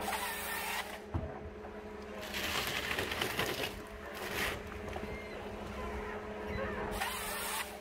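Heavy forestry machine running, its engine giving a steady low hum, with several spells of hissing noise from the cutting or hydraulic work.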